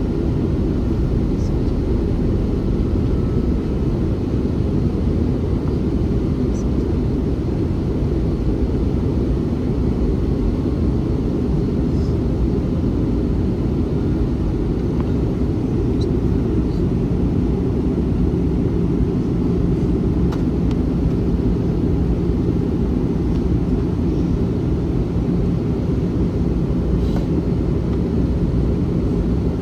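Steady cabin roar inside an Airbus A321-211 in flight, engine and airflow noise from its CFM56 turbofans, deep and even. A low steady hum joins the roar a little past halfway through.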